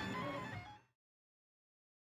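3D printer's stepper motors whirring in shifting, stepping tones as the print head moves, fading out a little under a second in; then silence.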